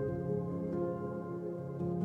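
Calm ambient background music of held, overlapping notes that change slowly.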